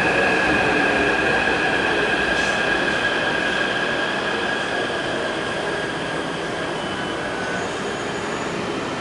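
Taipei Metro C301 train running, its traction inverter giving two steady high whining tones over wheel and rail rumble, fading as the train slows. The uploader calls this inverter sound on entering the station abnormal.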